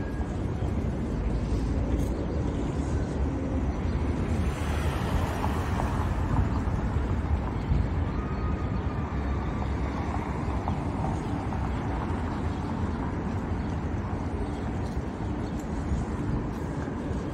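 City street ambience: a steady low rumble of traffic, with a vehicle passing about five seconds in.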